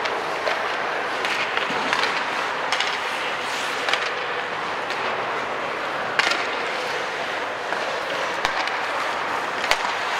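Ice hockey play: skate blades scraping and gliding on the ice, with sharp clacks of sticks and puck now and then, the clearest a little after six seconds and near the end.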